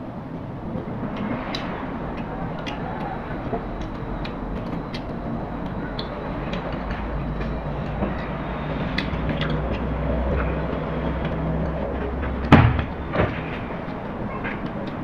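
Small, scattered clicks of boiled cockle shells being handled and pried open while eating, over a steady background rumble with a low hum that swells and then stops. Two sharp knocks near the end, the first one loud.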